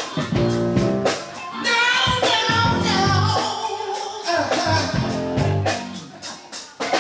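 Live band playing a soul-pop song: drum kit keeping a steady beat under bass and keyboard, with a vocal line that sings a run of bending notes in the middle.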